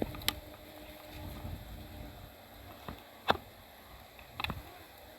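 Wind buffeting the microphone with a low rumble, broken by a few sharp clicks, the loudest a little after three seconds in.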